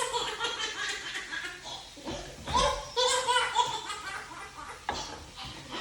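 Laughter in high-pitched voiced bursts, in two main bouts with a short lull about two seconds in.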